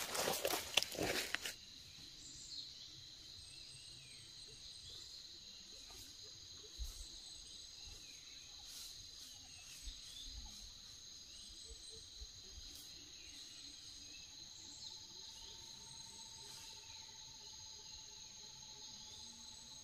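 Footsteps rustling through dry leaf litter for about the first second and a half, then a steady high-pitched drone of insects in the forest.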